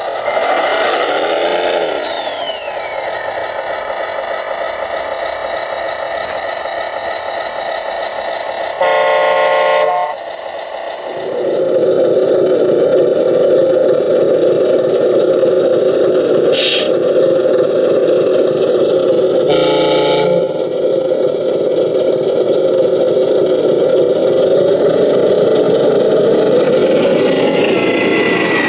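Radio-controlled model construction trucks running with a steady engine-like drone that grows louder about eleven seconds in, and two short horn blasts, one about nine seconds in and one about twenty seconds in.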